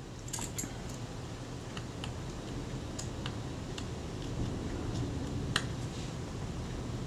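Scattered light metallic clicks and ticks of a small jeweller's screwdriver working a tiny hinge-pin screw in a Kodak Retina IIIC camera body, a reluctant screw with a shallow slot, over a steady low background.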